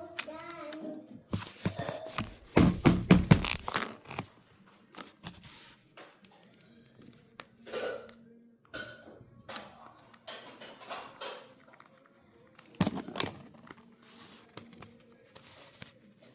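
Irregular clicks, knocks and crinkling rustles of small objects being handled, loudest in a cluster of sharp clicks about two to four seconds in. A brief voice comes in at the very start.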